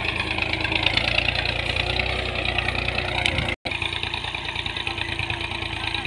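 Farm tractor's diesel engine running steadily under load while pulling a tine cultivator and leveling plank through ploughed soil. The sound cuts out for an instant just past halfway, then the same engine noise carries on.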